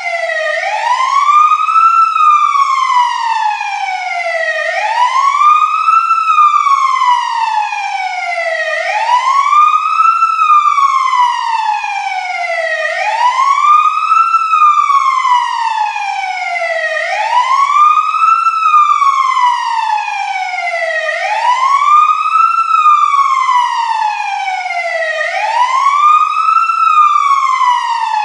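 Fire truck siren wailing: a quick rise in pitch followed by a long, slow fall, repeating about every four seconds.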